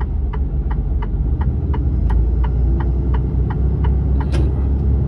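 Cab of a Mercedes-Benz Actros truck on the move: a steady low engine and road rumble, with the indicator flasher ticking about three times a second. The ticking stops about four seconds in, and a single sharper click follows.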